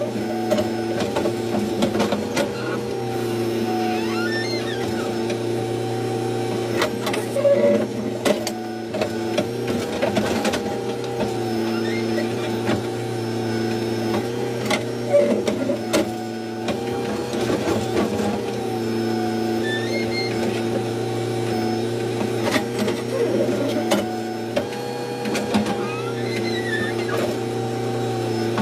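Backhoe loader's diesel engine running steadily while the hydraulic arm digs, its hum shifting slightly in pitch every few seconds as the load changes, with occasional knocks from the arm and bucket.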